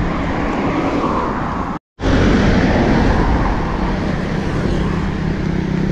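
Steady rush of wind on the microphone and road traffic while riding a road bike, with the rumble strongest low down. The sound drops out completely for a moment just before two seconds in, then carries on.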